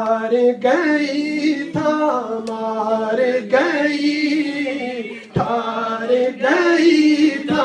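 A man singing a Punjabi naat into a handheld microphone, drawing out long held notes that bend and waver in pitch, with short breaths about two and five seconds in. No instruments accompany him.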